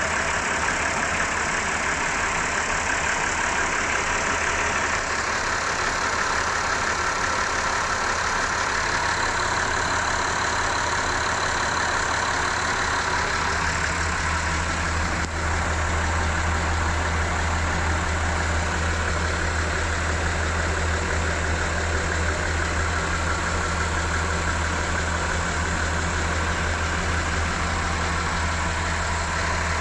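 Twin inboard engines of a Broom 35 European motor cruiser idling steadily after starting. Their low drone grows stronger about halfway through.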